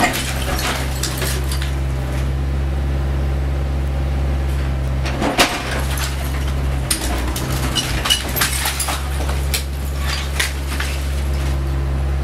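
CAT 304E CR mini excavator's diesel engine running steadily, with scattered sharp cracks and clatter of masonry breaking and debris falling as the bucket pushes into a block wall; the loudest crack comes about five seconds in, and a run of knocks between about seven and nine seconds.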